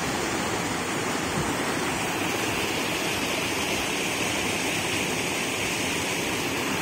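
Fast river water rushing and splashing over rocks in a steady white-water rush, turning a little hissier about two seconds in.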